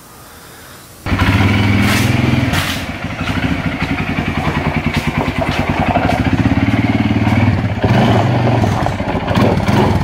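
Arctic Cat ATV engine running with a fast, even pulsing, coming in abruptly about a second in after a quieter stretch and holding near steady, with small rises and falls in revs.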